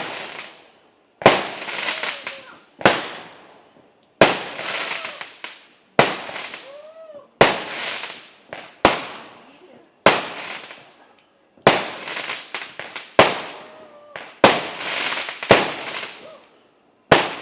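Fireworks going off in quick succession: a sharp bang about every second and a half, each followed by a fading crackle.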